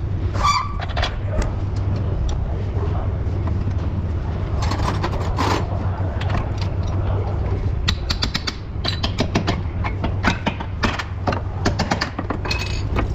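Metal clicks and clanks of hand tools working on a car's axle and suspension bolts, with a quick run of clicks in the later part, over a steady low hum.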